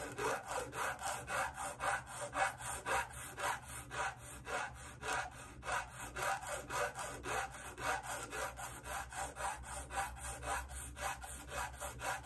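Small flat diamond-grit file rubbing back and forth across the end of a bassoon reed's cane, beveling it flat. A light, even rasp at about three to four strokes a second.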